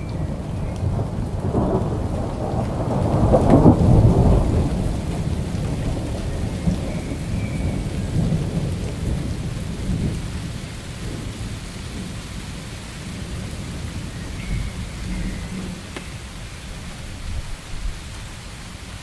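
A thunderstorm: a low rumble of thunder swells to its loudest about three to four seconds in and then rolls away slowly, with steady rain throughout.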